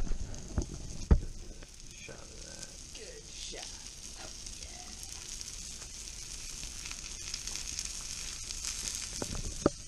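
Breaded porgy (scup) fillets sizzling as they pan-fry in a stainless steel skillet, a steady hiss. A few sharp metal clinks of tongs against the pan come in the first second or so and again near the end.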